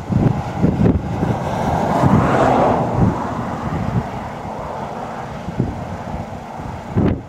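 A vehicle passing, its noise swelling to a peak about two and a half seconds in and then fading, over irregular low buffeting of wind on the microphone.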